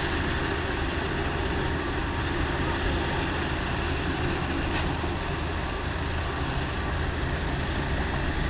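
Diesel engines of truck cranes and an earth compactor running together in a steady low drone.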